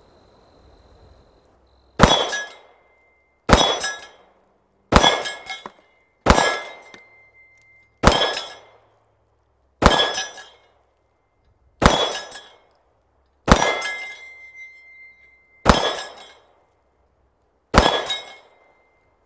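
Ten shots from a Ruger MAX-9 9mm pistol, paced about one and a half to two seconds apart, each with the clang of bullets striking a steel reaction target. After several of the hits a bright steel ring hangs on for a second or more.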